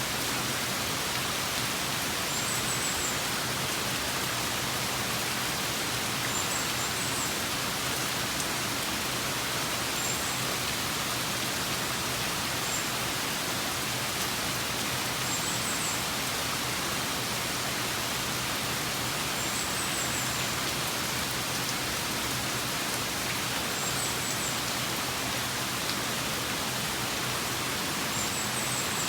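Steady rain falling in an even hiss, with a short, faint high chirp every few seconds.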